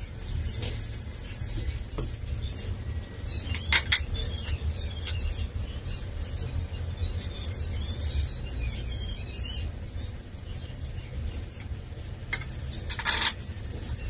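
Wooden boards being handled and set against an aluminium extrusion fence: scattered knocks and clicks, a scraping stretch in the middle as a board is slid into place, and sharper knocks about 4 s in and near the end, over a steady low hum.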